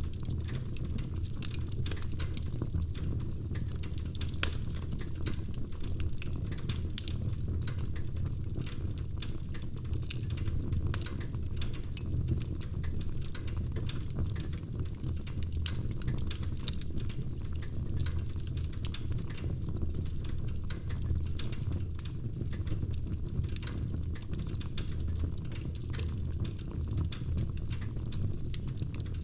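Wood fire crackling in a fireplace: a steady low rumble of burning logs with many sharp pops and snaps at irregular intervals.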